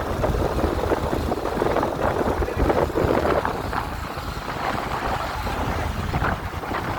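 Fishing boat running at sea, a steady rumble of engine and water with wind buffeting the microphone.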